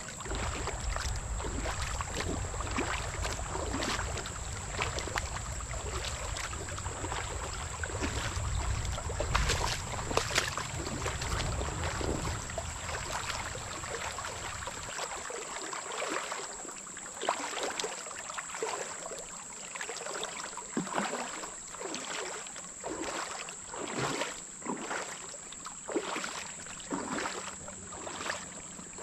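Footsteps wading through shallow creek water, splashing irregularly about once or twice a second. A low rumble, such as wind on the microphone, sits under the first half and then drops away.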